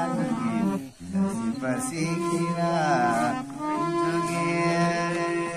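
A voice singing a devotional song over harmonium accompaniment, the harmonium holding steady notes beneath the wavering melody. The singing breaks off briefly about a second in.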